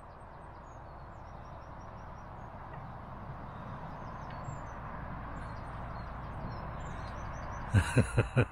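Faint birdsong over a steady outdoor background hiss. Near the end a man breaks into a short run of laughter.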